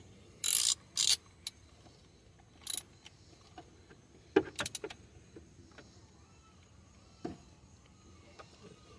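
Hand ratchet with an extended socket tightening a nut: a few short ratcheting bursts in the first second and another near three seconds, then scattered metallic clinks of tools on the engine.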